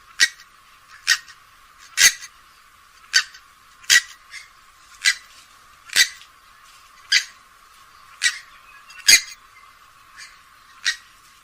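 Grey-headed swamphen giving a run of short, sharp calls, about one a second, some louder than others.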